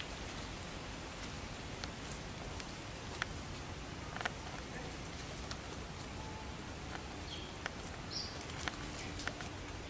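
Outdoor forest ambience: a steady hiss with scattered small clicks and a brief high chirp about eight seconds in.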